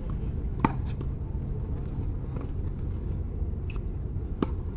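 Tennis racket striking the ball twice, about four seconds apart, as sharp pops, with fainter pops of the rally between them. A steady low rumble sits underneath.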